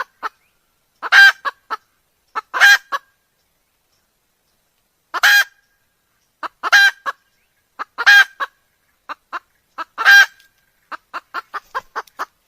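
Red junglefowl calling: six short, loud, harsh calls spaced one to two seconds apart, each with a brief note before and after, then a quick run of about ten short clucking notes near the end.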